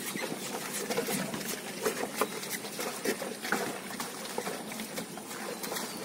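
Bullocks' hooves and the plough splashing and squelching through wet mud and standing water, in irregular wet slaps and patters.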